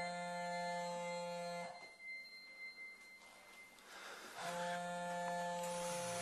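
Background score: a held chord sounds for about two seconds, drops away, and the same chord comes back about four and a half seconds in.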